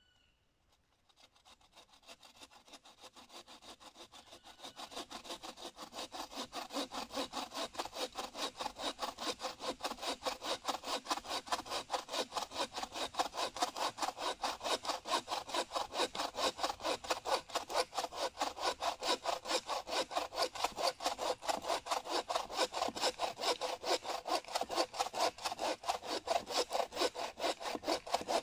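Hand saw cutting through a fallen pine trunk in quick, even strokes, about four a second. It starts faint about a second in and grows louder over the next few seconds as the cut deepens, then keeps a steady rhythm.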